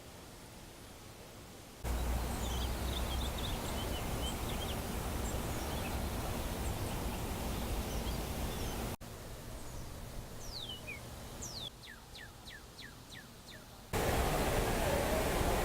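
Outdoor ambience in several short takes: a steady rushing noise with small birds chirping over it, then a quieter stretch where a bird gives falling whistles, including a quick run of about six descending notes, and near the end a louder steady rush of noise.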